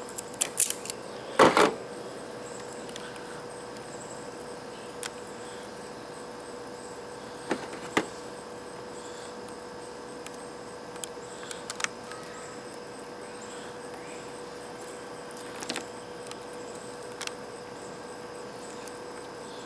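Clicks and snaps of hand tools on wire: a self-adjusting wire stripper clamping and stripping a solar-panel wire, loudest about a second and a half in, then scattered clicks of crimping pliers squeezing a metal connector pin onto the wire. A steady faint hum runs underneath.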